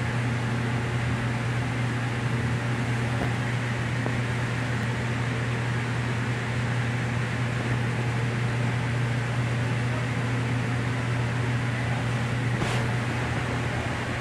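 Steady whirring hum of the ventilation fan and air conditioning in the restroom of a Long Island Rail Road C3 bilevel coach, with a strong low hum underneath. A faint click comes near the end.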